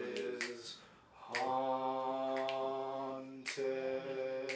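A man singing a cappella, holding long sustained notes. A short note is followed by a break about a second in, then a held note of about two seconds and another near the end.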